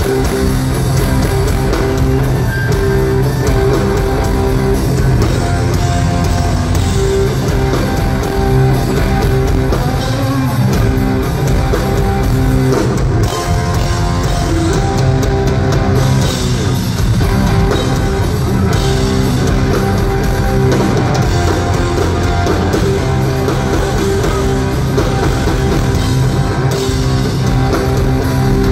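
Live rock band playing loud, with electric guitar, keyboards and drum kit, heard from the audience in a concert hall.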